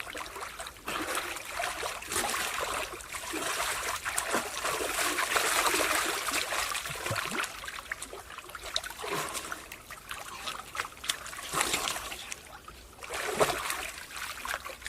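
Water splashing and trickling, with irregular splashes that come and go in loudness.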